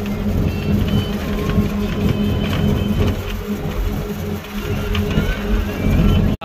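Engine and road noise of a moving bus heard from inside the passenger cabin: a steady low drone over a constant rumble.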